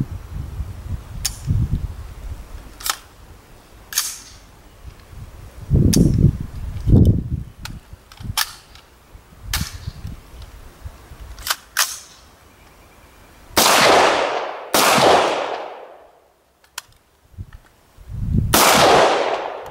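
AR-15 rifle fired in single shots: about eight or nine sharp cracks at irregular intervals over the first twelve seconds. These are followed by three loud rushes of noise, each about a second long.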